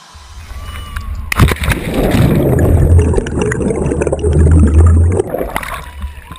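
Mountain bike tyres splashing through standing water on a wet street, over a steady low rumble. The splashing and sloshing begins about a second in with a sharp click and dies away shortly before the end.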